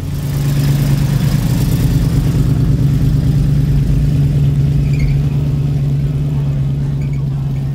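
A car engine running, a steady low hum that swells in just after the start and slowly fades away.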